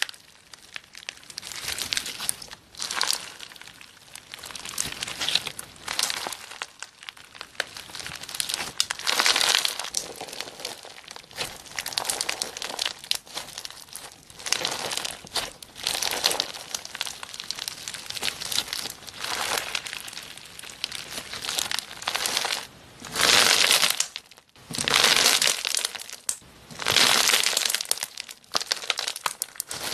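Slime being squeezed and worked by hand, making crackling, crinkly sounds in irregular bursts, with three louder bursts near the end.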